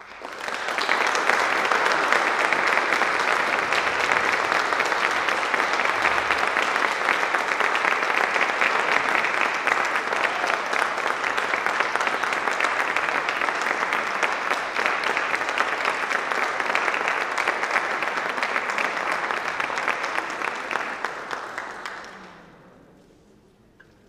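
Audience applauding after a concert band's final piece, starting suddenly and holding steady, then dying away about twenty-two seconds in.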